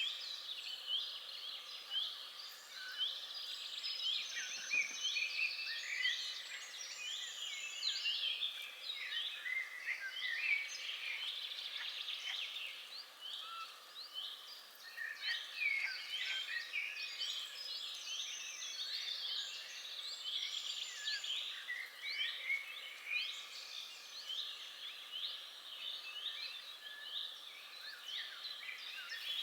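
Many small birds chirping and singing at once in a dense, continuous chorus of short high chirps and trills, over a faint background hiss.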